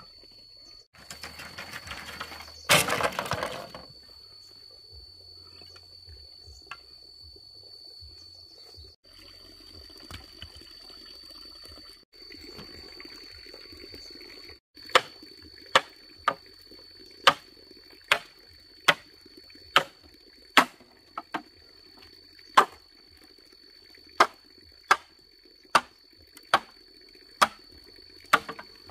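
Hook-tipped machete chopping into a green bamboo pole: sharp, even strikes at a little more than one a second, starting about halfway in. Earlier there is a brief rustling scrape, and a steady high-pitched whine runs underneath.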